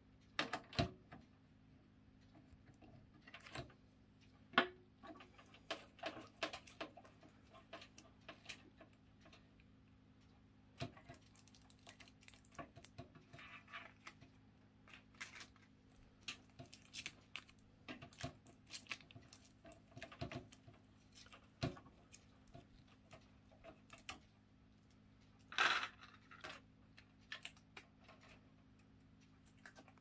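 Scattered light clicks, ticks and small scrapes of a screwdriver working the screws that hold a PC case's glass side panel, with a louder scrape near the end, over a faint steady low hum.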